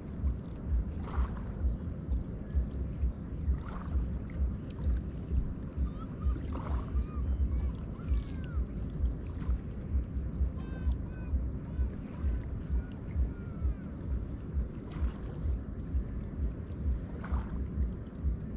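Neva river waves lapping and splashing against the bank, with a splash every few seconds, over steady wind rumble on the microphone.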